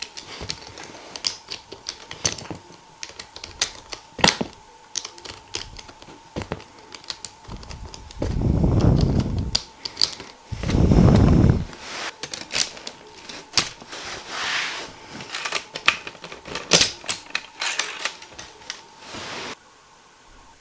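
LEGO Technic plastic parts clicking and clacking in the hands, many irregular sharp clicks, with two longer, louder scraping stretches about eight and eleven seconds in. The clicking stops shortly before the end.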